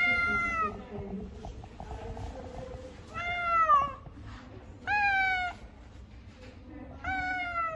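Tabby cat meowing four times, a second or two apart, each meow falling in pitch at its end.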